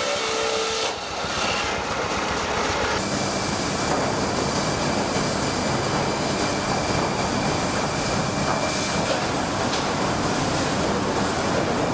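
Steady, dense mechanical noise of running machinery, changing character about one and three seconds in.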